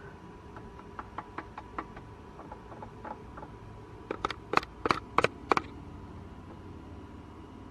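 A run of light clicks, then about five louder, sharp knocks in quick succession, from close handling or tapping.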